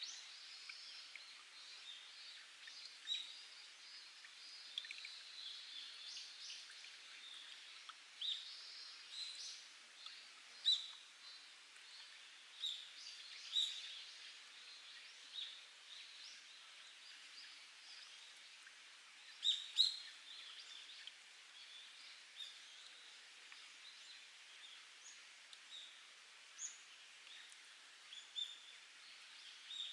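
Spring water trickling and dripping over rock in a steady high hiss, with frequent short, high chirps from wild birds scattered through it.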